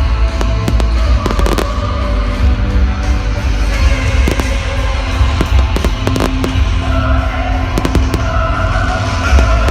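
Fireworks display: many sharp bangs and crackles from bursting shells in quick, irregular succession, over loud music with a heavy bass.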